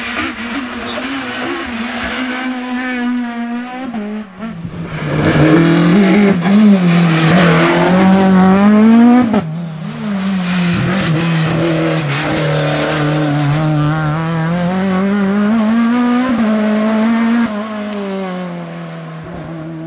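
Renault Mégane Maxi rally car engine, a naturally aspirated two-litre four-cylinder, revving hard at full throttle. Its pitch climbs and drops back with each gear change. It is loudest in the middle as the car passes close, with a sudden break about halfway, and fades near the end as the car pulls away.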